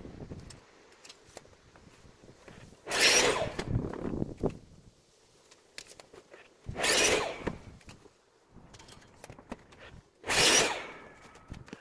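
A handheld power tool worked on wood in three short bursts, each about a second long and roughly three and a half seconds apart, with light clicks and knocks of handling in between.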